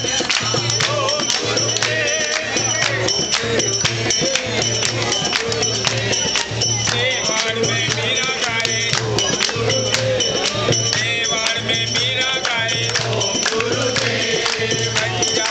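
Group devotional singing (a satsang chant) with jingling metal percussion and a steady low beat about twice a second.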